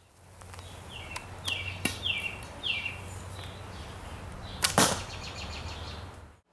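A homemade PVC pipe recurve bow is shot once, about four and a half seconds in: a single sharp snap of the paracord string as the arrow is loosed.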